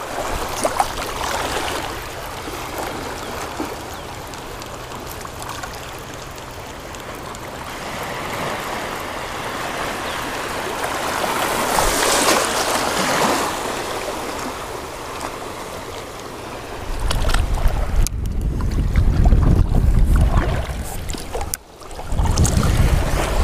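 Shallow shore water lapping and sloshing around a wading angler's legs and the rod and reel, with a louder splash about halfway through. Over the last several seconds a heavy low rumble on the microphone takes over.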